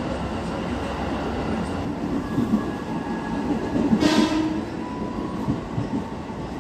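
Steady rumble of a JR 205-series KRL electric commuter train, heard from inside the car as it runs into a station. About four seconds in there is a brief hiss, with faint thin squealing tones around it.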